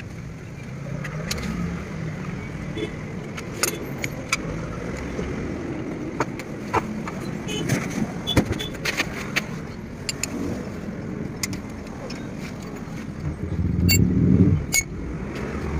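Scattered sharp metallic clinks and taps of a socket wrench and loose wheel nuts as a car wheel is taken off and a brake caliper bolt is worked loose, over a steady low hum. A louder rumbling stretch comes near the end.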